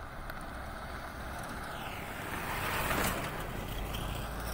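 A motorcycle approaching on a dirt road, its engine and tyre noise growing louder over the second half, with light wind on the microphone.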